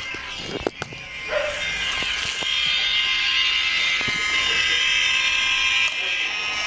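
A steady, high buzzing drone that sets in about a second and a half in, after a few light clicks, and holds level before cutting off suddenly near the end.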